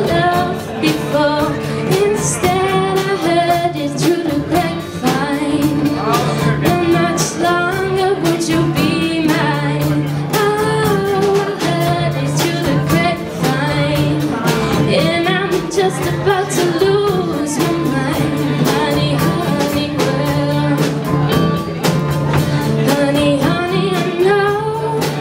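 A live school band playing a pop song: a girl sings the lead over electric guitar, drum kit, hand drum and keyboards, with steady beats throughout.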